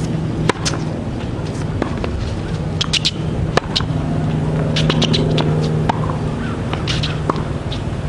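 Sharp pops of tennis ball strikes, two of them loudest about half a second and three and a half seconds in, over a steady low mechanical hum.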